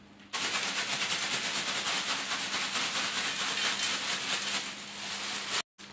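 Dry, crunchy nimko snack mix being tipped from a plastic bag into a steel tray: a continuous dry rattling and crinkling that starts abruptly just after the start.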